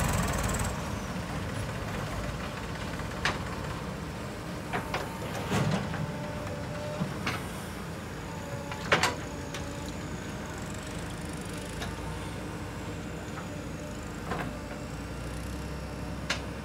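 Diesel engines of a Mahindra tractor and a JCB backhoe loader running steadily while the backhoe digs, with a few sharp clanks, the loudest about nine seconds in.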